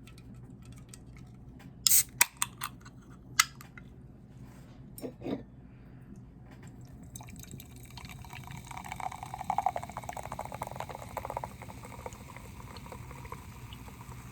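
Several sharp clacks in the first few seconds, then liquid running or pouring from about halfway, loudest a little after the middle.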